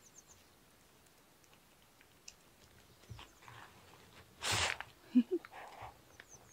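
Two cats licking lickable squeeze-tube cat treats: faint wet licking and smacking clicks, with a short breathy rush about four and a half seconds in and two brief low blips just after.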